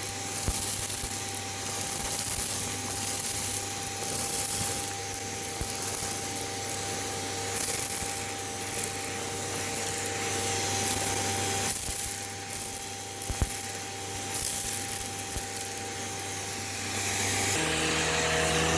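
Hoover Elite Rewind Plus upright vacuum cleaner running, a steady motor whine and hum under a hiss of suction that swells and fades as it is worked. About a second before the end the motor's tone changes.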